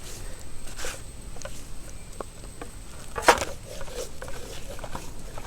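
Hands rubbing salt and turmeric onto a whole raw chicken: soft, wet pats and squishes of skin and flesh, with one sharper smack a little past the middle.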